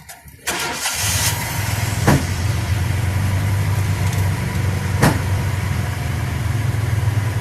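A vehicle engine idling steadily, starting abruptly about half a second in, with a couple of sharp clicks over it.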